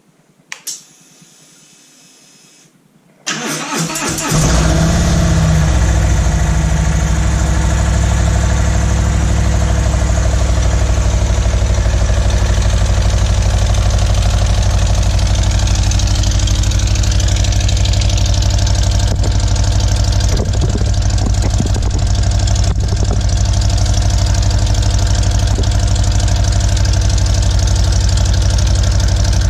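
Harley-Davidson Road King V-twin motorcycle engine started from cold: a click and a brief faint whirr, then it cranks and catches about three seconds in and settles into a steady, loud idle through aftermarket exhaust pipes.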